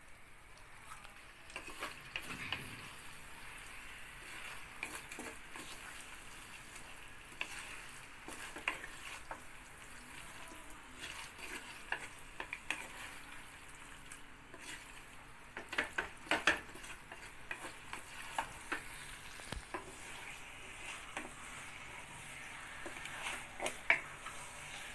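Masala paste and chicken pieces sizzling in oil in a pressure cooker, stirred with a wooden spatula that scrapes and knocks against the pot. There are a few louder knocks in the second half and one near the end.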